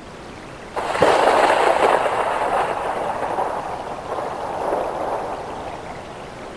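Steady rain, with a thunderclap breaking in sharply about a second in and rolling away, slowly fading over the next few seconds back to the rain.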